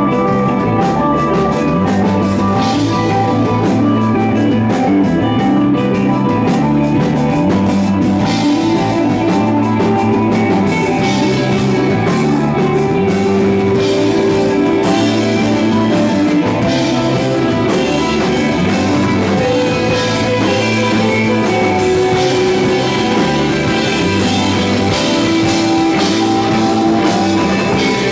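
Live psychedelic rock band playing: sustained electric guitar lines over bass guitar and a drum kit, with steady loudness and cymbals struck throughout.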